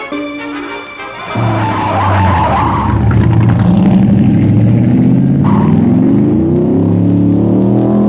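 Racing car engine revving and climbing in pitch, with a stretch of tyre squeal early on, under background music.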